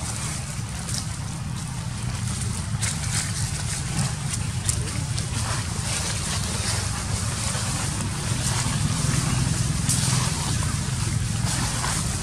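Dry leaves rustling and crackling in many short snaps as small feet move over a leaf-littered floor, over a steady low rumble.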